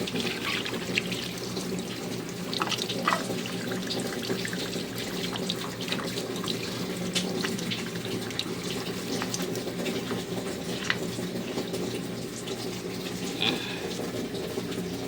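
Samsung 5 kg automatic washing machine filling its tub: water pours steadily into the drum, with a steady low hum underneath and small splashes throughout.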